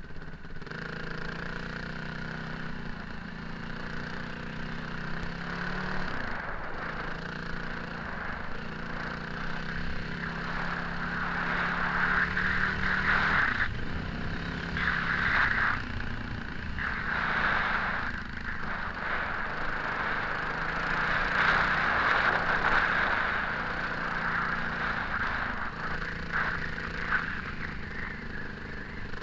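Off-road motorcycle riding over a desert dirt track: the engine runs at a steady note that shifts in pitch about six and thirteen seconds in, under loud wind rush and gravel noise that swells in the middle.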